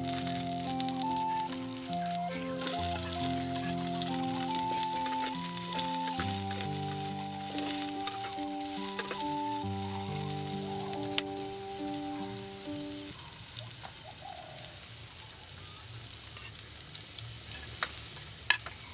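Oil sizzling in a clay pot as green chillies, curry leaves, garlic and chopped onions fry. A background tune of stepped notes plays over the first two-thirds and stops about thirteen seconds in, and a couple of sharp taps come later.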